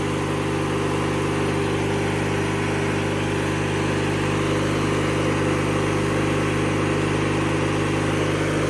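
1997 MTD Yard Machines riding lawnmower's engine running at a steady speed.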